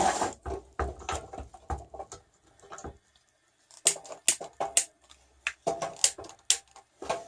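A run of sharp, irregular clicks and knocks as a newly installed propane barbecue burner is handled and lit, the crisp clicks coming about two or three a second from about four seconds in.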